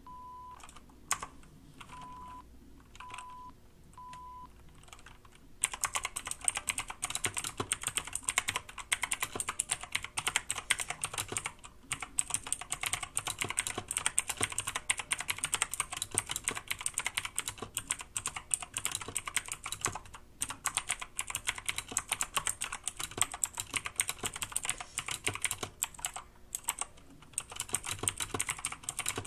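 Yeyian Flare 2000 mechanical keyboard with blue clicky switches being typed on fast: a dense run of sharp key clicks with a few brief pauses. It starts about six seconds in, after a few scattered clicks and four short beeps.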